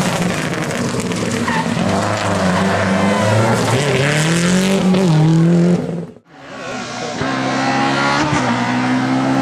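A Subaru Impreza rally car's flat-four engine revving hard as it passes and pulls away, its pitch climbing with a brief dip at a gear change. About six seconds in the sound cuts off abruptly, then another rally car's engine is heard coming on.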